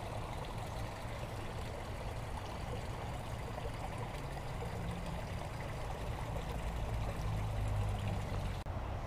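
Small stream of water flowing and trickling steadily, with a low rumble underneath.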